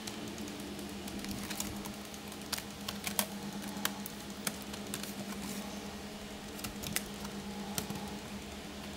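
Scattered light clicks and taps of plastic laptop casing being handled and pried apart, over a steady low hum.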